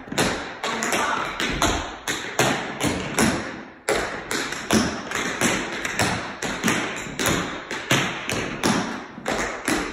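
Tap shoes striking a wooden studio floor as a tap dancer works through a step: a quick, uneven run of sharp taps, some louder than others, several a second.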